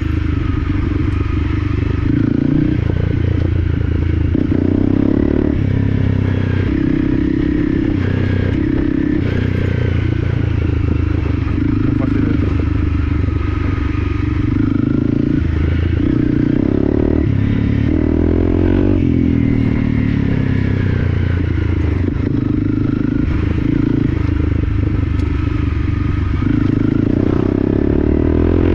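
Dual-sport motorcycle engine ridden off-road, its revs rising and falling over and over as the rider works the throttle and gears, with knocks and rattles from the bike over the rough track.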